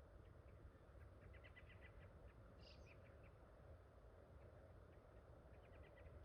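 Near silence with faint bird calls: a quick run of short chirps about a second in, a higher call soon after, and another run of chirps near the end.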